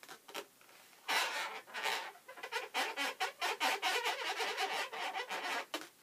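Marker squeaking on latex balloons as eyes are drawn on: a few short squeaks at first, then a quick, busy run of squeaks from about a second in that stops shortly before the end.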